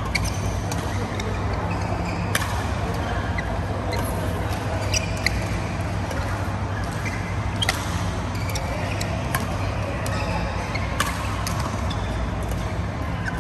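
Badminton rally: sharp racket strikes on the shuttlecock every second or so, irregularly spaced, with short squeaks of court shoes on the mat, over a steady low hum.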